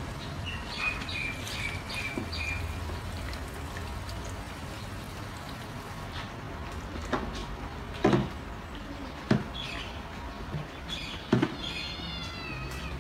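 Water from a salon shower sprayer running over long hair into a backwash basin, with a string of short high chirps about a second in and several sharp knocks in the second half.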